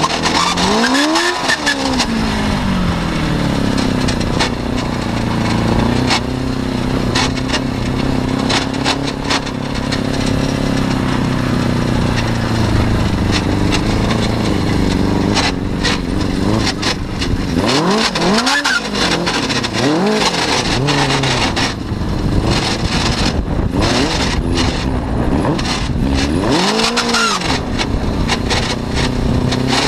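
Suzuki RF600 motorcycle engine driving an off-road buggy, heard from on board. It runs at a steady drone under part throttle for a long stretch, and the revs climb and drop sharply in short bursts at the start, several times in the second half and again at the end. Many short knocks from the chassis on the rough, muddy track sound over it.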